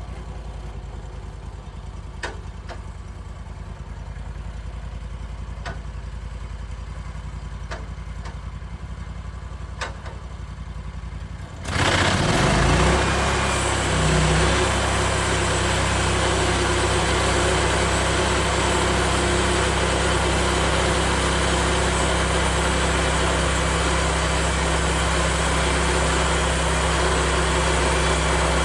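Portable bandsaw sawmill's gas engine idling with a few light clicks, then about twelve seconds in it is throttled up sharply, its pitch rising briefly before it settles into steady, loud high-speed running.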